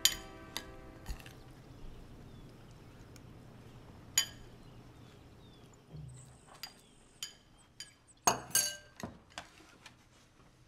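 Dishes clinking: a scatter of sharp clinks, some ringing briefly, with a quick cluster of several clinks about eight seconds in.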